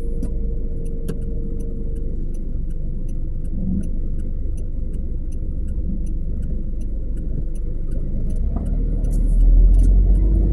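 Low, steady rumble of a car's engine and tyres at slow driving speed, heard from inside the cabin, with faint regular ticking about twice a second. The rumble swells near the end.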